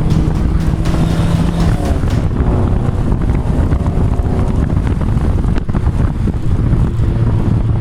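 Volvo 480 Turbo's 1.7-litre turbocharged four-cylinder running under way with a custom-made exhaust, a deep rumble mixed with road and wind noise. A steady engine note drops away about two seconds in, and a lower one comes in near the end.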